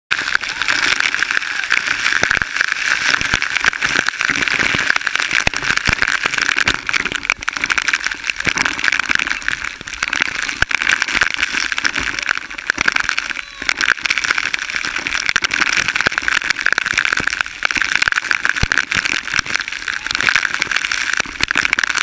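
Waterfall: a steady hiss of falling, splashing water.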